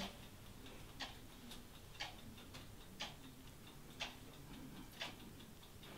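A clock ticking faintly: a sharper tick about once a second with softer ticks in between.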